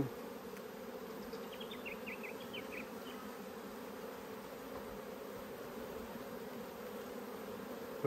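Honeybees from an opened nucleus colony buzzing in a steady hum as they are moved into a new hive box. A few faint high chirps come in about two seconds in.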